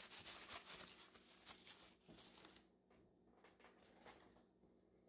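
Paper towel wiping a small glass pane in quick back-and-forth strokes, cleaning it with rubbing alcohol. The strokes stop about two and a half seconds in, leaving only faint handling sounds.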